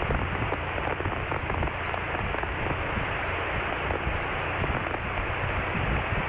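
Cessna 152, its four-cylinder engine at idle, rolling out after landing. A steady low hum sits under dense crackling noise.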